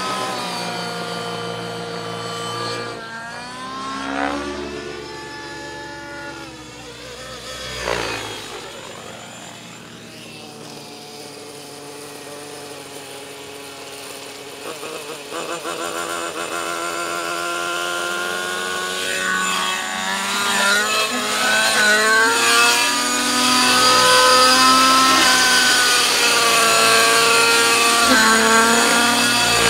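Nitro glow engine and spinning rotor of a 700-size MSH Protos Nitro radio-controlled helicopter, its pitch rising and falling as the engine revs change. It drops quieter about a third of the way through, then grows louder again over the last third.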